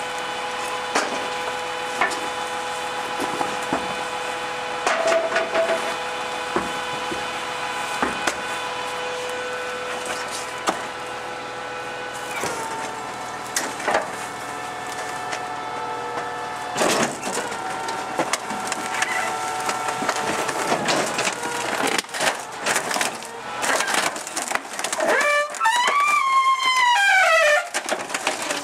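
Rear-loader garbage truck with a MacDonald Johnston E-Z Pack compactor body on a Scania 93M, running with a steady whine that steps in pitch a couple of times, while a couch is loaded into the hopper with sharp knocks and the cracking of its wooden frame. Near the end a wavering whine rises and falls as the compactor works the couch, amid more cracking.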